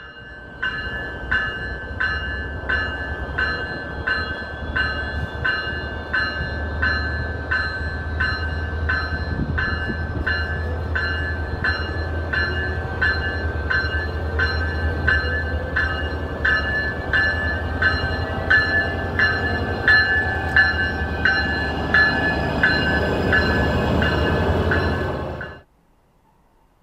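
Siemens Charger diesel locomotive of a MARC commuter train standing with its engine running, a steady low rumble, while a bell rings in an even rhythm about one and a half strikes a second. Both cut off abruptly near the end.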